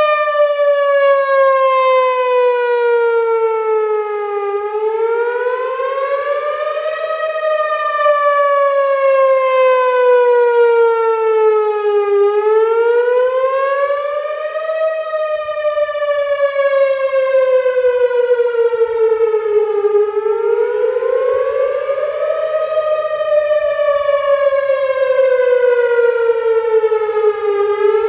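Whelen Vortex outdoor warning siren sounding a full wail on its monthly test. The pitch climbs for about two and a half seconds, then falls for about five, and repeats about three and a half times.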